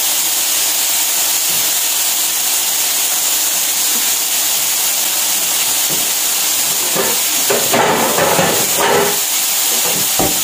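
Chicken fillets sizzling in hot oil in a non-stick frying pan: a steady frying hiss, with a brief louder, busier patch about eight seconds in.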